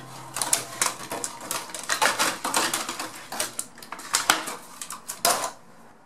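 Stiff clear plastic blister packaging being handled and pulled open, crackling and clicking in quick irregular bursts that die away near the end.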